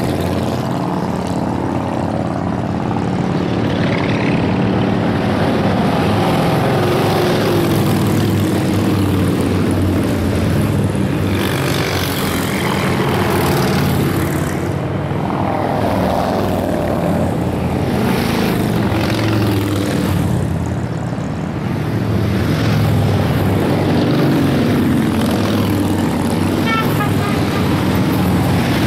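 A column of motorcycles, mostly large touring bikes, riding past at highway speed: a continuous engine drone with the pitch sweeping down several times as bikes go by.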